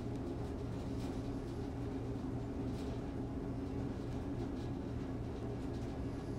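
Steady low mechanical hum, like a fan or motor running in a small room, with a few faint ticks.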